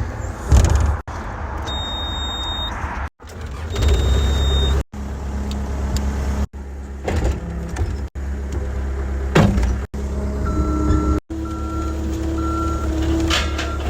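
Cat 252B2 skid steer's diesel engine running, a steady low rumble that breaks off abruptly several times. Near the end a backup alarm beeps as the machine reverses.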